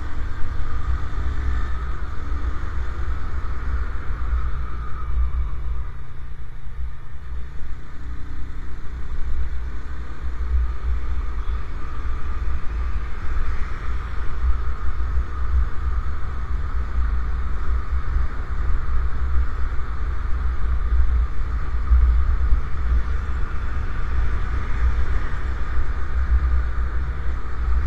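Ride noise from a moving motorcycle: wind rumbling on the microphone over the bike's engine and tyre noise, running steadily without a break.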